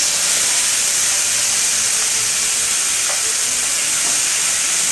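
Wet spice paste sizzling fiercely in hot mustard oil in an aluminium kadhai, a loud steady hiss of steam. The paste is ground mustard seed, cumin and red chilli.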